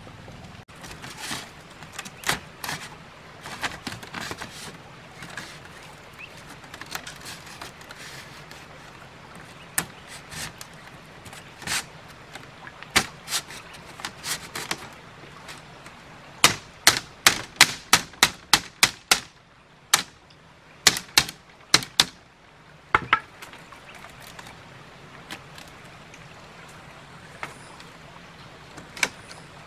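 Split bamboo strips clacking and knocking against bamboo stakes as they are woven into a fence wall: scattered sharp clacks, with a quick run of about eight, some three to four a second, a little over halfway through.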